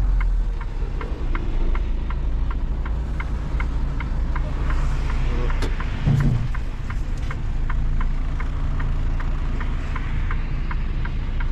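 Semi-truck engine and road noise running steadily, with a light ticking about three times a second and a brief louder thump about six seconds in.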